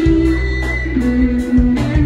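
Live funk band playing: electric guitar over bass and drums, with a held melody note that steps down about a second in.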